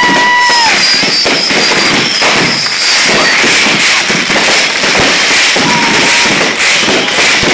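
Fireworks and firecrackers going off in a dense, continuous barrage of rapid bangs and crackling. A high thin whistle runs through the first three seconds, and a shorter whistle comes about six seconds in.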